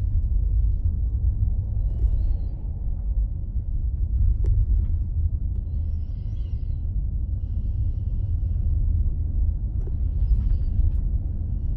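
Steady low rumble of a car driving, with road and engine noise heard from inside the car.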